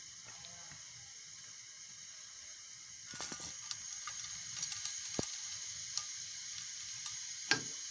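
Soft ghee being scraped from a steel bowl into a warming aluminium karahi with a silicone spatula. From about three seconds in there is faint crackling with scattered clicks of the spatula on metal, and a sharper knock near the end.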